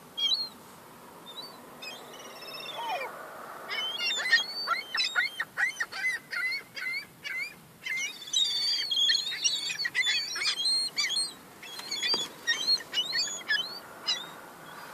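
Young gulls calling: a rapid string of short, high-pitched squealing cries. They start sparsely, come thick from about four seconds in and are busiest in the second half, as the birds squabble over crumbs.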